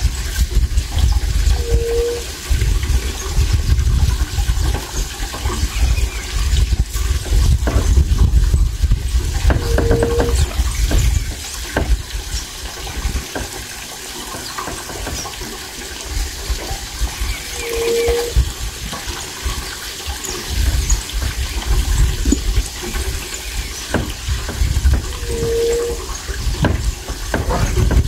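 Wind buffeting the microphone: a heavy low rumble that rises and falls. Faint bird chirps sit above it, and a short low hoot comes four times, about every eight seconds.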